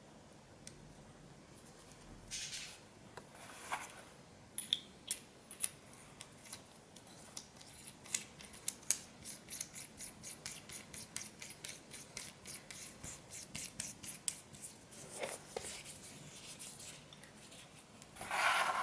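Light metallic ticking and rubbing from a VW 1.9 TDI ALH diesel injector being put together by hand as its nozzle retaining nut is spun on. There is a fast run of small ticks through the middle, with scraping handling noises near the start and again near the end.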